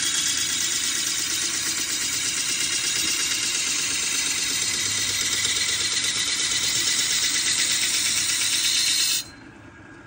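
Loud, steady machine noise from sickle-making workshop machinery, running with a fast, even rhythm, cutting off suddenly about nine seconds in.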